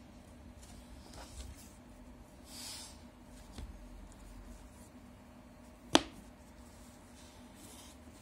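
Faint handling rustles of a linen-covered cardboard box, then one sharp snap about six seconds in as its lid is shut.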